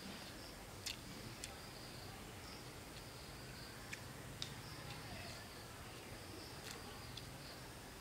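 Faint insects chirring in short spells, with a few sharp clicks scattered through.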